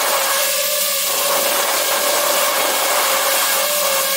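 DJI FPV drone's four brushless motors and propellers spinning at idle while the drone sits on the ground, heard up close from on board: a steady whine with a rushing hiss.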